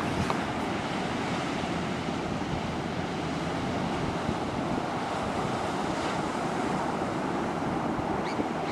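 Ocean surf washing onto a sandy beach, a steady rush of noise, with wind buffeting the microphone.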